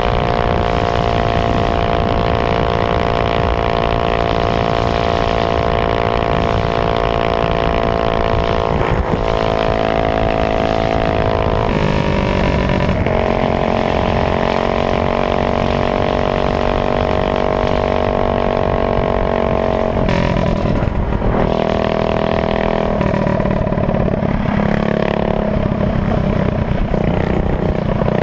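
Honda GX160 single-cylinder four-stroke engine on a minibike running loud and hard at speed. Its pitch drops and climbs again several times as the throttle is eased and reopened.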